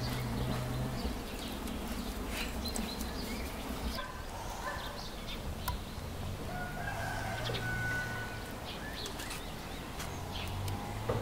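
A rooster crowing once, a long call about seven seconds in. There are a few sharp clicks in the first few seconds.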